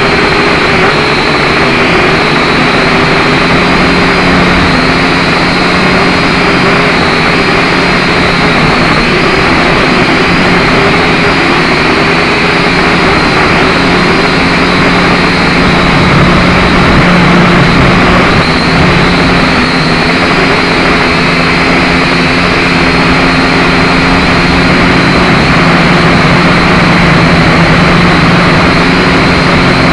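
Small quadcopter drone (Syma X5C) in flight, its brushed motors and propellers giving a steady whine that wavers slightly in pitch, over a loud rushing noise from the high wind.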